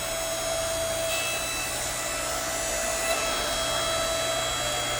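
Electric motor and hydraulic pump of a 7-ton electric log splitter running steadily with a constant hum.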